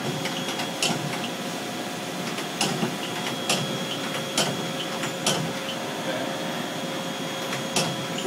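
CNC lathe spindle running, with a steady hum and whine of thin constant tones, broken by several sharp mechanical clicks at uneven intervals.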